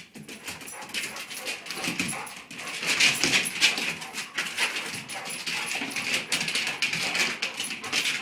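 A dog scrambling after a moving light spot, making quick, irregular clicking and scuffing throughout, the sound of claws and paws on the floor.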